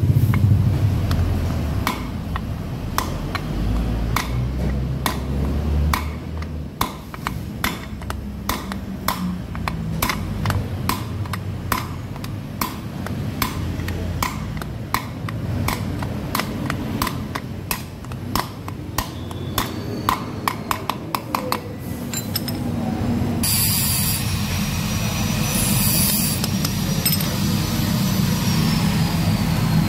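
A steel drift rod is struck with a hammer against a ball bearing in a Yamaha X-Ride scooter's aluminium final-drive gear case, giving a long run of sharp metallic knocks, about two to three a second. The knocks stop a little over twenty seconds in and give way to a steadier noise with high ringing tones.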